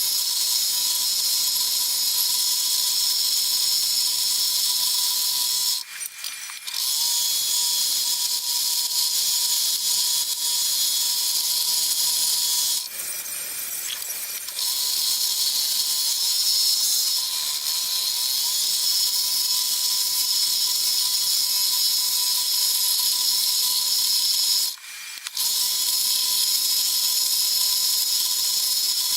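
Scroll saw running and cutting through wood, a steady high-pitched buzz that breaks off briefly three times.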